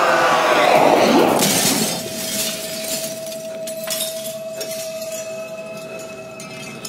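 A large plate-glass window shattering as a man bursts through it, in a film sound mix, loud for about the first two seconds. Then it drops to falling glass shards clinking now and then, under a steady held tone.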